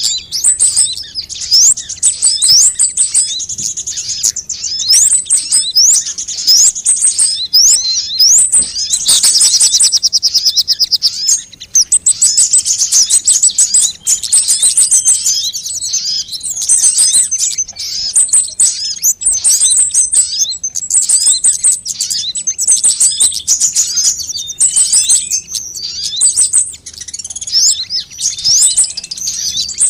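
Sunbirds (Indonesian 'kolibri') calling: a fast, unbroken stream of very high, thin chirps and short rising trills.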